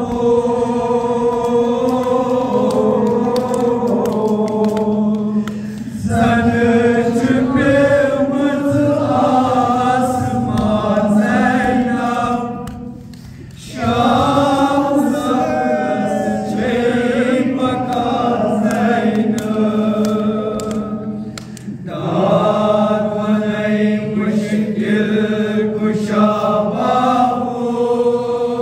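Kashmiri noha, a Shia lament for Imam Hussain, sung unaccompanied by a male reciter into a microphone in long, drawn-out phrases. There are two short breaks between phrases, about halfway and two-thirds of the way through.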